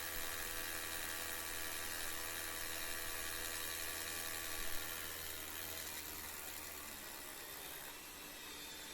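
Power drill spinning a 1/4-inch bit down through a hole in a stone floor tile: a steady motor whine that eases off about five seconds in.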